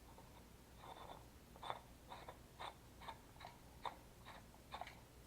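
A run of faint, short clicks and crinkles, about two a second, from hands handling plastic airsoft rifle parts and packaging.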